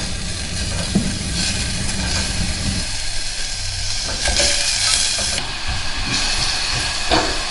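Chopped red onion sizzling in olive oil in a stainless steel pot, being lightly fried as the base of a sauce, with a few knocks of a wooden spatula against the pot as it is stirred. The sizzle swells to a louder hiss for about a second midway.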